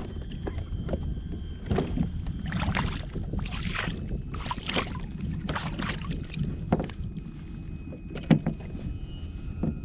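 Wind rumbling on the microphone on a kayak, with a series of short water swishes and splashes about a second apart, and a sharp knock near the end.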